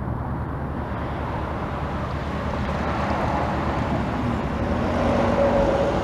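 Cessna 172P Skyhawk's four-cylinder Lycoming piston engine and propeller running at taxi power: a steady low drone that grows louder.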